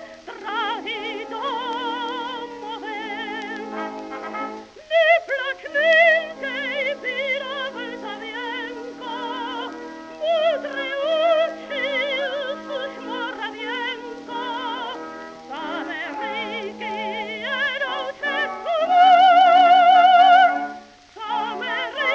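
Operatic soprano singing in Czech with a wide vibrato, accompanied by a small orchestra, on a 1919 acoustic-era Victor shellac disc: thin sound with no deep bass. A long, loud high note is held near the end.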